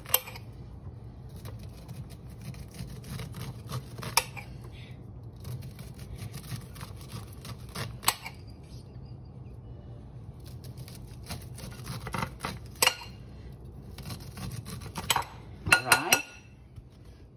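Kitchen knife cut down an ear of fresh corn on the cob, stroke after stroke: each stroke is a scraping of a couple of seconds as the blade shears the kernels off, most ending in a sharp click of the blade against the glass bowl. Near the end a few louder clacks of the knife on the glass.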